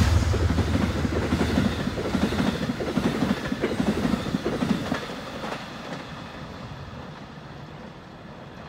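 Amtrak passenger train passing at speed. The low drone of its GE Genesis diesel locomotive fades within the first moment. Then the wheels of its stainless-steel Amfleet coaches clatter over the rail joints, dying away about two-thirds of the way through as the last car passes.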